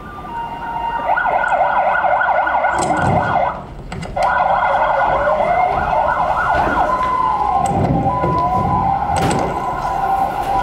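Ambulance siren sound effect: a fast yelp that breaks off briefly about three and a half seconds in, resumes, then slows into a rising and falling wail. A few low thumps sound underneath.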